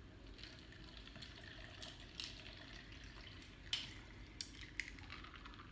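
A drink poured from one plastic cup into another cup of ice: a soft, faint trickle, with a few sharp clicks between about two and five seconds in.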